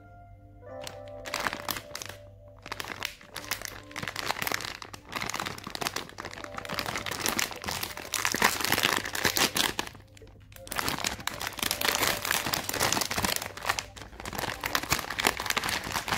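Plastic candy bag of Milkita chocolates crinkling and tearing as it is pulled open by hand, in dense crackling with a short lull about ten seconds in. Background music plays underneath.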